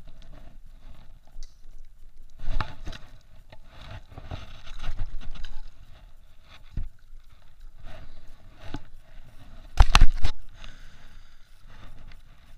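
Handling noise from casting and working a spinning rod on a plastic sit-on-top kayak: irregular rustling and scraping, with two sharp, loud knocks about ten seconds in.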